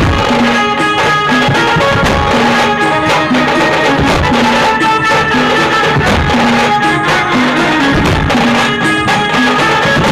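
Loud festive Indian folk-style music: drums beating under a short melody phrase that repeats over and over.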